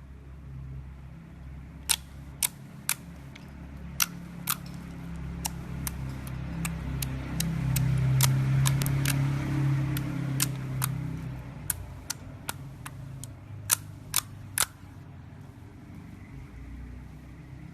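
Clear slime being squeezed and stretched by hand, giving irregular sharp pops and clicks as trapped air bursts, over a low handling rumble that swells and fades through the middle.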